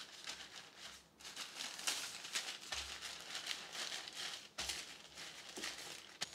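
Wooden rolling pin rolling dough between two sheets of parchment paper: faint rustling and crinkling of the paper that swells and fades with each back-and-forth stroke.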